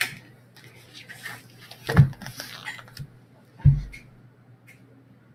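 Two dull thumps, about two seconds and three and a half seconds in, with faint rustling between them, over a steady low hum.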